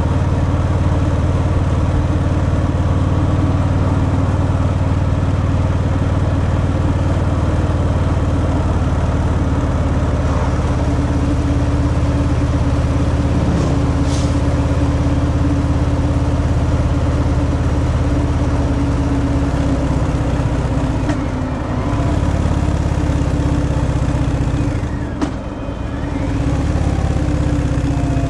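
Stock Harley-Davidson Fat Boy's V-twin engine running steadily under way through its stock exhaust. Twice near the end the engine note drops and then picks up again, as the throttle eases off and opens.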